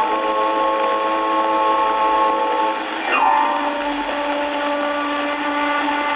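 Soundtrack music of several held notes sounding together as a sustained chord. About three seconds in, a quick sliding note leads into a new chord.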